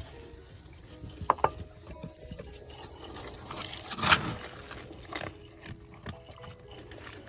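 Dog food bowls and kibble clinking and knocking at feeding time: scattered clinks, with the loudest knock about four seconds in.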